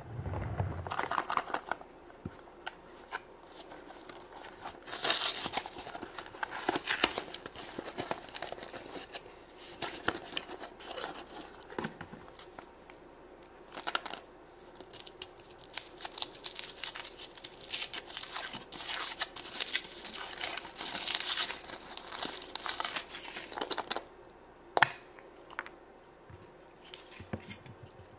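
Packaging of a chocolate surprise egg being torn open and crinkled by hand: the foil wrapper rustles and crackles in irregular bursts. A single sharp click comes near the end.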